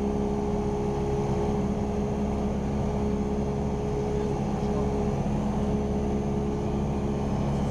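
Cessna 172R Skyhawk's four-cylinder Lycoming engine and propeller droning steadily in flight, heard from inside the cockpit.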